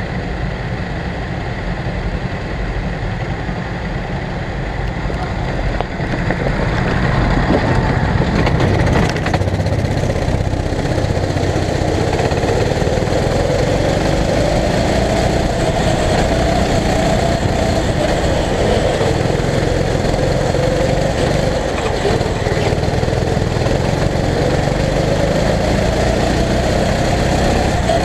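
Go-kart engine running, quieter at first, then louder from about six seconds in, with its pitch repeatedly rising and falling as the throttle opens and closes around the laps.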